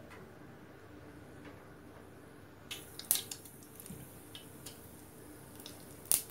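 Mustard seeds heating in hot coconut oil in a frying pan: a faint sizzle, then from about three seconds in, scattered sharp pops that come faster near the end as the seeds begin to splutter.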